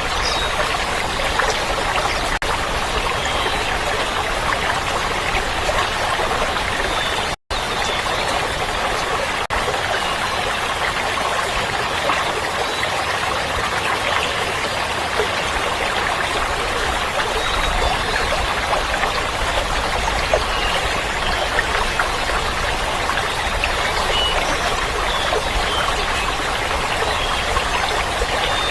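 Water flowing steadily, an even rushing trickle like a stream of running water, with a momentary dropout about seven seconds in.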